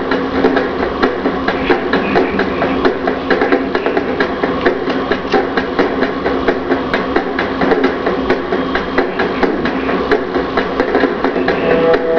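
Heavy metal music: a fast, steady drum beat under distorted guitar.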